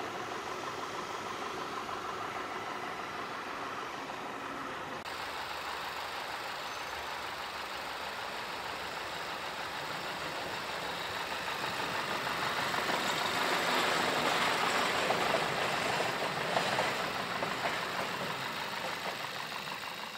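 2012 Volkswagen Passat's 1.8-litre TSI inline-four idling steadily. It grows louder for a few seconds past the middle, then eases back.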